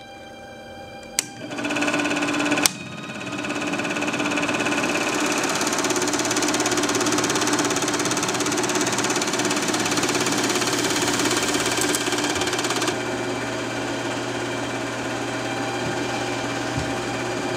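16mm film projector running, a steady mechanical clatter of the film transport, preceded by two sharp clicks in the first three seconds as it starts up.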